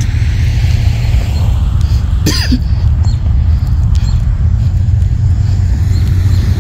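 Wind buffeting a phone microphone: a steady low rumble. About two seconds in comes one short throat sound from the walker.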